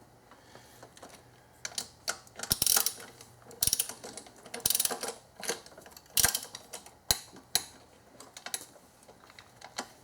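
Hand ratchet clicking in short bursts of quick clicks while intake manifold bolts on a VQ35DE V6 are run down in their torque sequence.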